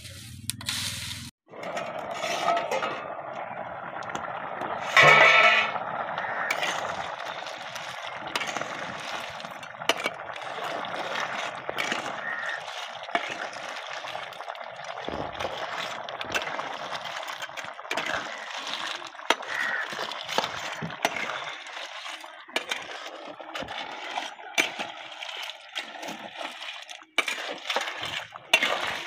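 A metal spatula stirs small snails in their shells through simmering curry in an iron kadai, shells clinking and clattering against each other and the pan over a steady hiss of the simmering gravy. The loudest clatter comes about five seconds in.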